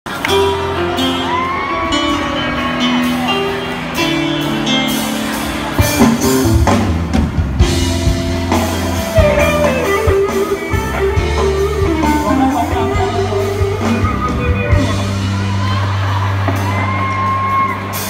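Live pop band playing a song's intro on electric guitar, bass guitar, keyboard and drums. The drums come in about six seconds in.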